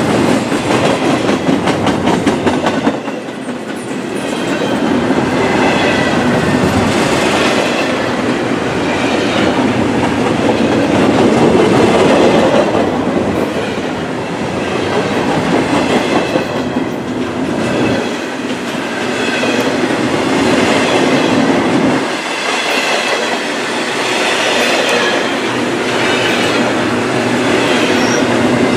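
Double-stack intermodal well cars of a freight train rolling past close by, their steel wheels clattering over the rail joints. A faint high squeal comes and goes.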